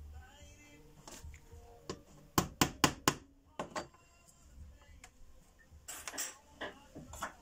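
Sharp taps and clicks of glass and horseshoe nails being set into a stained-glass panel on a workbench: four quick taps a little over two seconds in, a couple more just after, and a few more near the end.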